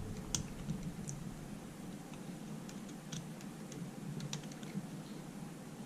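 Faint, scattered light clicks of small outboard carburetor parts being handled as a new float pin is slid into the float hinge.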